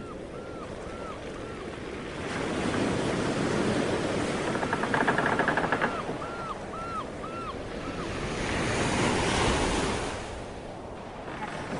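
Ocean waves surging in slow swells on the sea. Short, high arching calls repeat in quick runs near the start and again around the middle.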